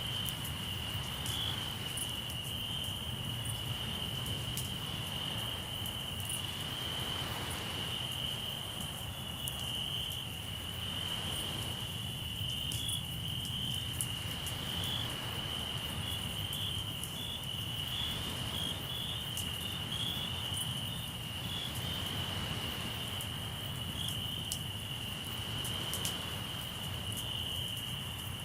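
Crickets trilling in one steady, unbroken high band, over a low, steady wash of sea surf. Sparse faint crackles from the campfire's burning wood come through now and then.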